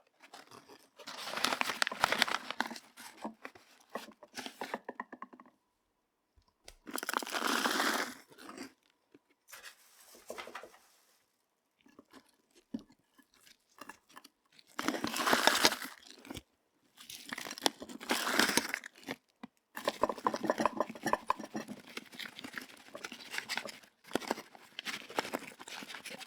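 Crunching and rustling in irregular bursts, each a second or two long with short gaps between them, from terrarium materials being handled by hand.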